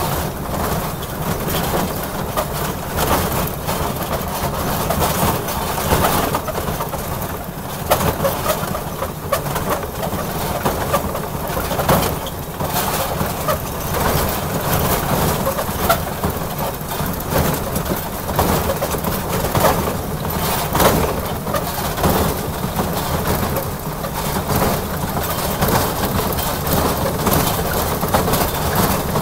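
Backyard ride-on train running along its track: a steady rumble with irregular clacks and knocks from the locomotive and wheels on the rails.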